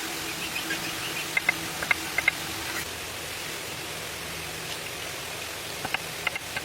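Steady outdoor background hiss, with a few short, high bird calls about a second and a half in and again near the end.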